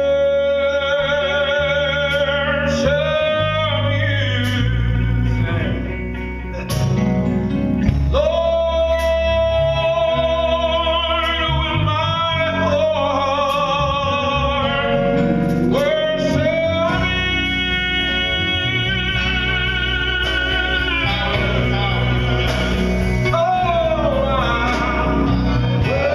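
Male gospel vocal group singing in close harmony, holding long notes with sliding pitch changes between them, over keyboard and guitar accompaniment.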